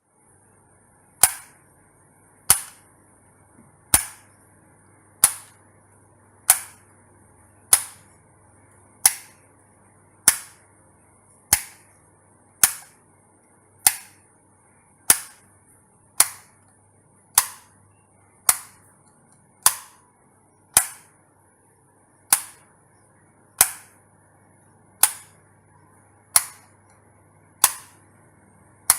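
An electric light switch clicking on and off over and over, one sharp click about every second and a quarter, over a faint steady hum.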